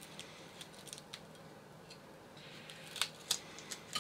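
Onion being peeled with a kitchen knife: faint scrapes and crackles of the dry papery skin, with a few sharper clicks near the end.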